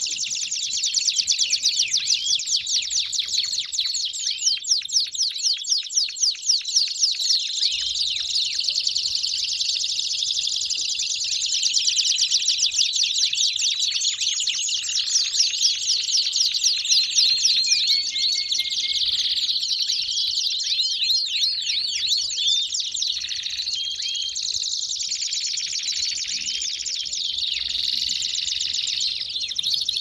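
Many domestic canaries singing at once, a dense, unbroken chorus of rapid high trills and chirps.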